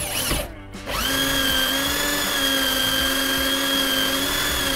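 Small corded electric drill with a tank-cutter bit boring a hole through the wall of a plastic water tank. The motor changes speed, cuts out about half a second in, then restarts and runs at a steady pitch.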